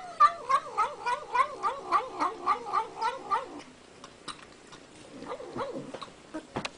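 A cat giving a rapid run of short, wavering calls, about three a second, for some three seconds. A few faint clicks follow.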